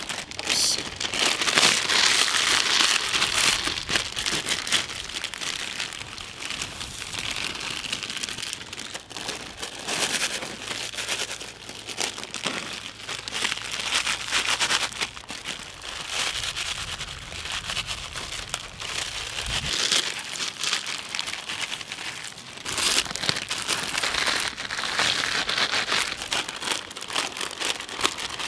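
Lay's potato chip packets being torn open and crinkled by hand, with chips spilling out of them: a continuous crackling rustle of plastic packaging, louder near the start and again near the end.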